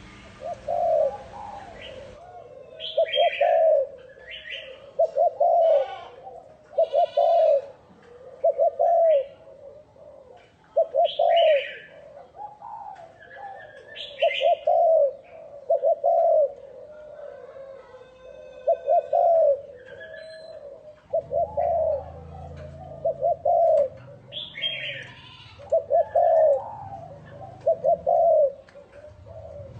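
Spotted dove cooing over and over in short, clipped coo notes, with higher bird chirps mixed in.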